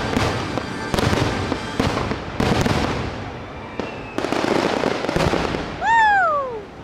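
Fireworks show finale: a dense run of bangs and crackling that thins out after about three seconds, with a few more booms around five seconds in. About six seconds in, a loud high tone slides down in pitch for under a second.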